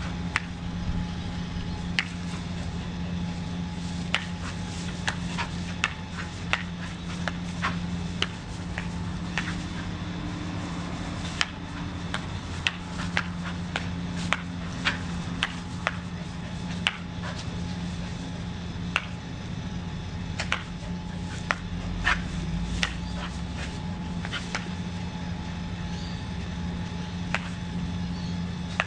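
Steady hum of an automatic bubble blower's small electric motor, with irregular sharp clicks and taps scattered throughout.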